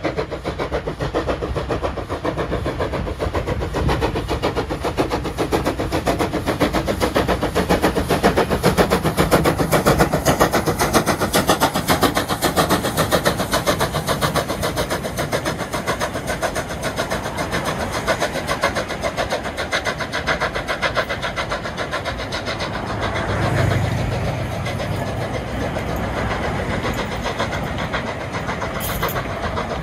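Former Commonwealth Railways steam locomotive NM25 working hard as it passes at close range: a steady, fast run of exhaust chuffs, loudest about ten seconds in as the engine goes by. This is followed by the running noise of its carriages rolling past on the track.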